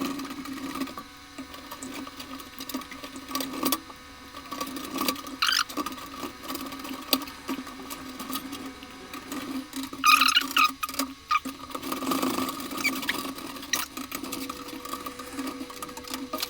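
Screws being put into a PC motherboard's mounting standoffs in a metal case: small metal clicks, rattles and scrapes from the screwdriver and screws, the loudest about ten seconds in, over a steady hum.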